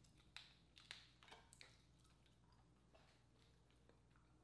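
Faint cracking and wet squishing of sauce-coated crab shell being picked apart by hand, with a cluster of sharp crackles in the first couple of seconds and a few soft ticks after.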